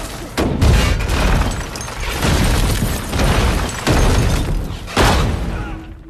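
Film battle sound effects: tank cannon fire and shell explosions, a run of about five heavy booms, each with a rumbling tail. The booms die away near the end.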